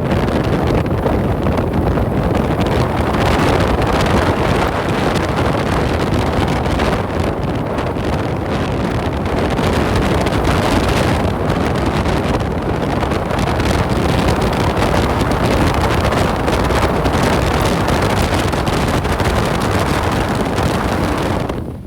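Wind rushing over a microphone held out the window of a moving off-road vehicle, mixed with the vehicle's driving noise, loud and steady; it cuts off suddenly near the end.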